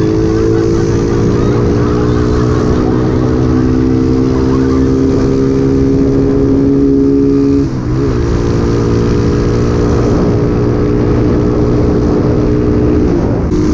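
Rusi Macho 150 motorcycle's stock 150 cc single-cylinder engine, fitted with a 30 mm carburettor, running under acceleration. Its pitch climbs slowly, drops briefly at a gear change about eight seconds in, then holds and breaks again near the end.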